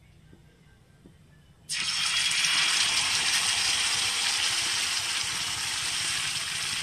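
Rice-flour batter hitting a hot oiled tawa about two seconds in, setting off a sudden, loud, steady sizzle of frying in a generous layer of refined oil.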